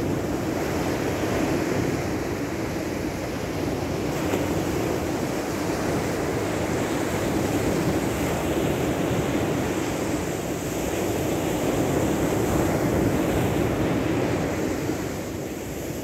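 Sea surf washing onto a sandy beach: a steady rushing noise that swells and eases, mixed with wind on the microphone.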